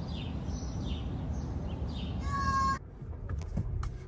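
Wind buffeting the microphone, with birds calling in short repeated falling chirps and one longer, harsher pitched call a little over halfway through. The sound then cuts abruptly to the quieter hum of a car interior with a few faint clicks.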